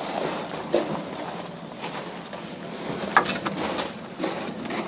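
A few sharp knocks of curved concrete catch-basin blocks being set against one another: one a little under a second in, then two louder ones around three seconds in, over a faint steady background.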